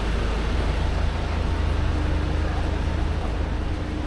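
City street traffic: a steady low rumble of vehicle engines under general street noise, with a thin steady hum joining about halfway through.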